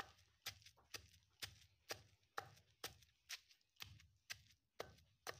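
A pestle pounding fried taki fish, garlic and green chilli in a stone mortar: a steady rhythm of dull strikes, about two a second, each with a sharp click as it hits.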